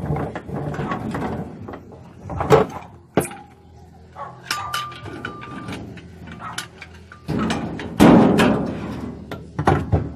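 Irregular knocks, clacks and scraping of washing machine parts being worked on and handled, with a brief squeak about halfway through and a loud scraping clatter near the end.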